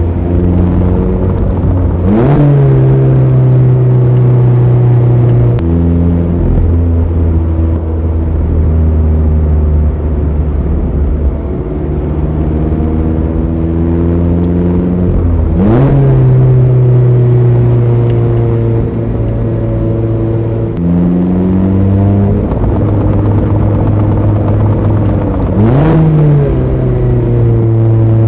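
Mazda ND Roadster's 1.5-litre four-cylinder engine driven hard through a manual gearbox. The engine note climbs and falls with each stretch of road, with sharp rev blips on downshifts about two seconds in, midway and near the end.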